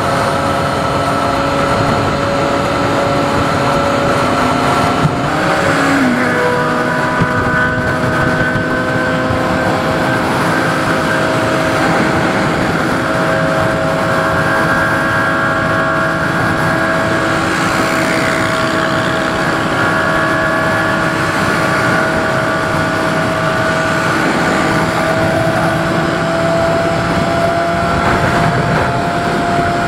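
Triumph Daytona 675's three-cylinder engine, fitted with an Arrow exhaust, running at a steady cruise over a rush of wind noise. Its note steps down in pitch about five seconds in, then holds steady, rising slightly near the end.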